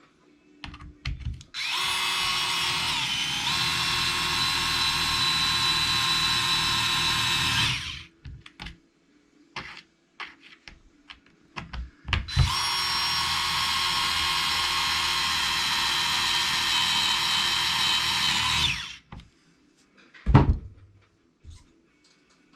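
A small power screwdriver runs in two steady stretches of about six seconds each, driving in the bolts of the final cover. Between the runs there are small clicks of handling, and there is a short knock near the end.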